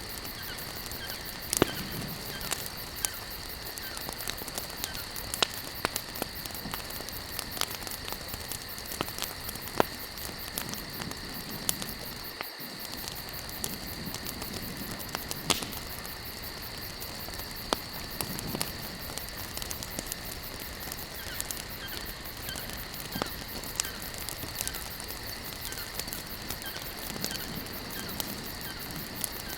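Campfire burning in the open: burning wood crackling, with sharp irregular pops every second or so over a steady hiss.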